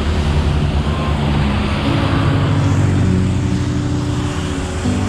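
Music with held low bass notes that change pitch every second or so, over a steady rushing noise.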